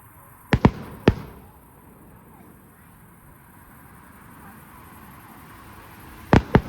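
Aerial firework shells bursting with sharp bangs: three in quick succession about half a second in, then two more close together near the end.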